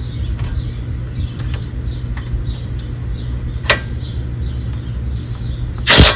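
A steady low hum with faint, regularly repeated high chirps and a single sharp click part way through. Near the end a DeWalt cordless power tool bursts into loud running on a bolt at the front hub.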